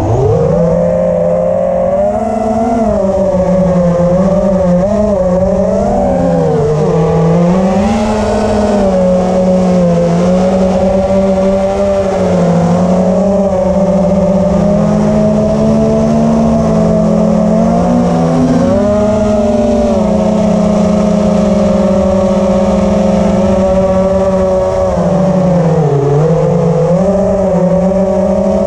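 Brushless motors and propellers of an FPV quadcopter, heard from its onboard camera, whining loudly and without a break. The pitch slides up and down with the throttle and dips briefly a few times.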